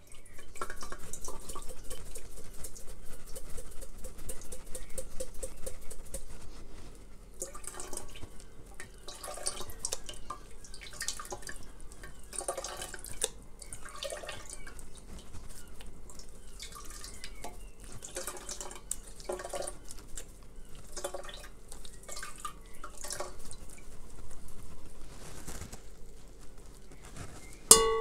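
Water draining from wet newspaper paper-mâché pulp pressed in a mesh sieve, falling into an enamel pot: a steady trickle for about the first six seconds, then irregular drips and wet squelches as the pulp is pressed.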